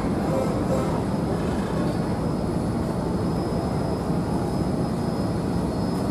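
Steady low drone of a ferry boat's engine running under way, heard from on board.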